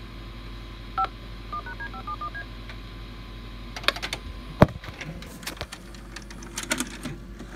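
Touch-tone (DTMF) telephone dialing tones recorded at the start of a VHS tape, played back: one short dual tone about a second in, then a quick run of about eight more. Scattered clicks and knocks follow in the second half, with one sharp knock.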